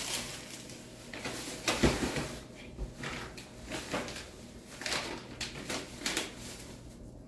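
Off-camera household handling noises: scattered knocks and rustles, with a louder thump about two seconds in.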